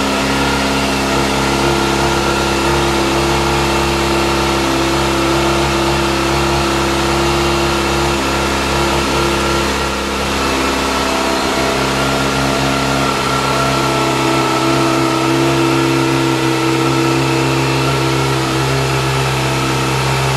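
Kawasaki Ninja sportbike engine idling steadily, its pitch holding level; the note shifts slightly about ten seconds in.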